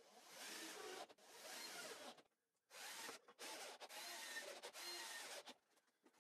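Cordless drill driving screws into a plywood frame, heard faintly in a series of runs about a second long each with short breaks between them.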